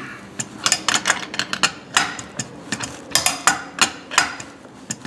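Sharp, irregular metal taps and clicks, about three or four a second, as a hand tool works the crankshaft into a Farmertec 372 chainsaw crankcase half.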